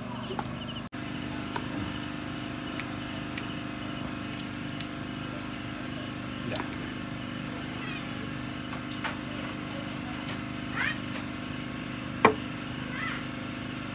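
Steady hum of a small engine running, with scattered light clicks and one sharper knock about twelve seconds in.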